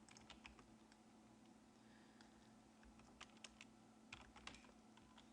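Faint, scattered taps of a computer keyboard and mouse being used.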